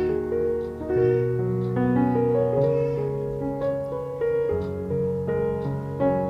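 Background piano music: slow, held notes over low bass notes.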